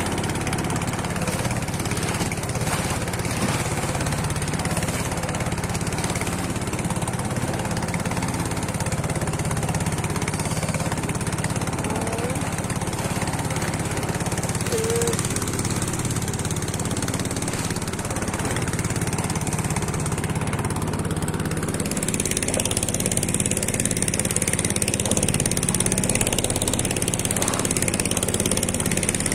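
Small fishing boat's motor running steadily under way, with water rushing along the hull. The hiss of water and spray grows louder about two-thirds of the way through.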